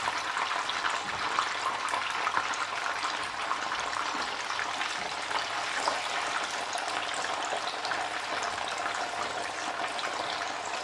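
Food sizzling steadily in hot oil in a frying pan, with a dense fine crackle.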